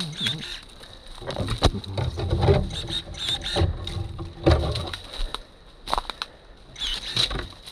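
Brush being cleared in dry woods: twigs and branches cracking and snapping, rustling through dry leaves, and an uneven series of sharp clicks and dull thumps.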